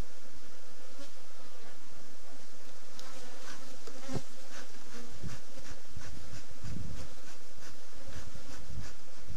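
A swarm of honeybees buzzing in a steady hum around an opened hive. From about three seconds in, a series of quick hissing puffs from a bee smoker's bellows repeat two to three times a second, with low rumbles underneath.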